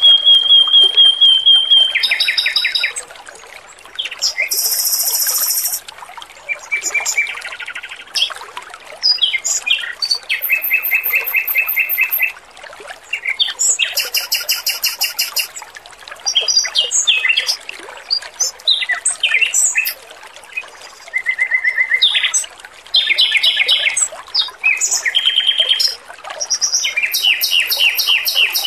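Male Pekin robin (red-billed leiothrix) singing. Bursts of rapid, high, repeated trills and chattering phrases, each a second or two long, follow one after another, over a steady trickle of running water.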